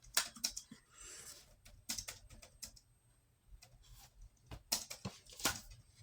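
Irregular light clicks and taps, like small objects being handled, with two sharper clicks near the end.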